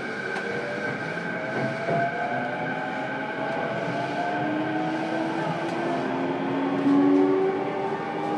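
E233-7000 series electric train heard from inside a motor car: the traction motor and inverter whine in several tones that climb in pitch over the second half, as the train picks up speed, over the steady running noise of the wheels on the rails.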